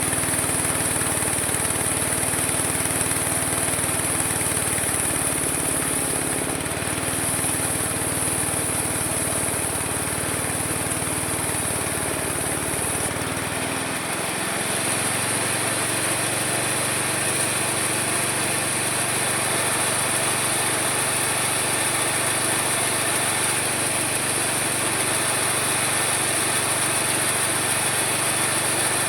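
Homemade mini sawmill running steadily under a small engine, with a strong high steady whine over the engine note; the engine's note drops about halfway through.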